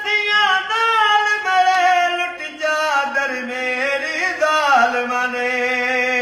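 A man singing a noha, a Shia lament for Imam Hussain, unaccompanied, in long held notes that waver and slide down in pitch, settling on a lower sustained note near the end.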